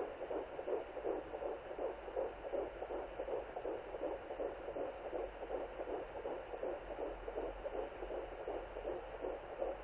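Fetal heartbeat at 11 weeks picked up by a Sonoline B pocket fetal doppler: a fast, regular run of whooshing pulses from the doppler's speaker.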